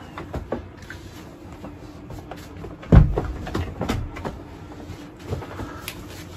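Clicks of an interior door's handle and latch as the door is opened, then a heavy thump about three seconds in, followed by a run of knocks and rustles.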